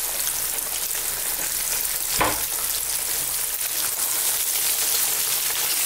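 Flour-coated sea bass pieces shallow-frying in a couple of centimetres of hot vegetable oil: a steady, moderate sizzle with fine crackling, the oil hot but not spitting hard. A single dull knock sounds about two seconds in.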